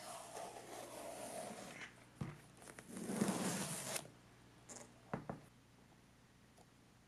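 Blue masking tape being pulled and peeled along a sneaker's midsole, a ripping rasp like a zipper. A first stretch lasts about two seconds, a louder pull follows about three seconds in, and a couple of sharp clicks come about five seconds in.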